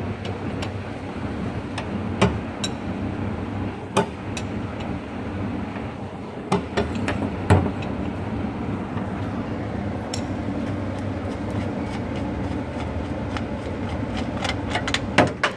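A wrench clinking on the top bolt and lid of a 1950 Chevy truck's oil filter canister as the lid is loosened: scattered sharp metallic clicks, the loudest about seven and a half seconds in and a quick run of them near the end, over a steady low hum.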